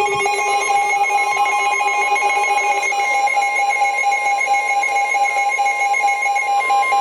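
Weather alert radio sounding its electronic alarm for a severe thunderstorm warning: a loud, shrill, buzzy multi-tone alert. Near the end a single steady tone grows louder.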